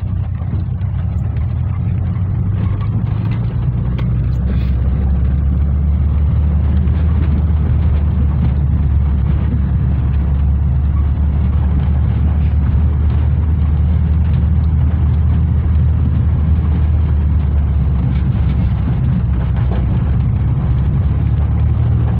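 Volkswagen Kombi van driving, heard from inside the cab: a steady low engine drone with tyre and road noise from the gravel surface. The drone shifts in pitch about three seconds in, and there are a few small knocks and rattles.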